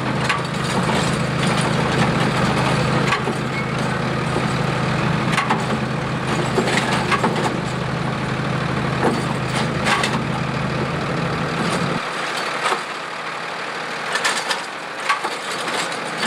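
Garbage truck engine running with its deep drone as the automated side-loading arm lifts, tips and lowers waste carts. Clattering knocks come from the carts and trash dropping into the hopper. About twelve seconds in, the engine's low drone drops away sharply while the clatters go on.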